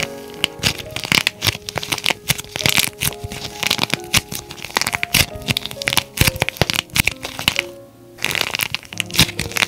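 Dried plaster clay with a pearly painted coat cracking and crumbling as it is broken by hand: many quick, sharp cracks in irregular clusters, with a short pause about eight seconds in. Soft piano music plays underneath.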